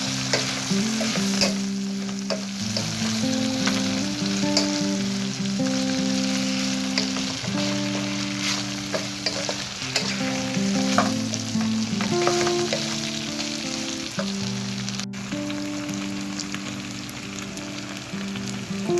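Food sizzling in a frying pan while being stirred, with a utensil clicking and scraping against the pan now and then. Soft background music with slow, held notes plays underneath.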